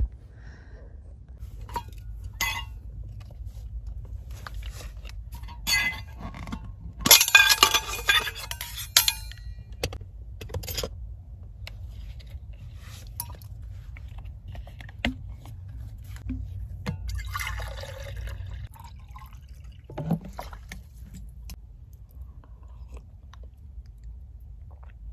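Belongings being handled and packed inside a minivan: scattered clicks and rustling, with clinking of containers. A louder burst of rustling and clinking comes about seven seconds in, and a softer rustle comes about eighteen seconds in.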